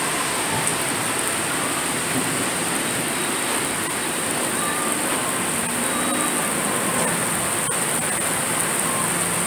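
Heavy rain pouring down on wet pavement, a dense, even hiss.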